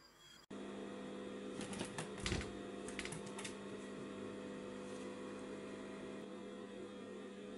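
Light clicks and taps from cats sparring with their paws against a door and skirting board: a quick cluster around two seconds in, peaking in a dull thump, and a few more about three seconds in. A steady hum with several fixed tones runs underneath.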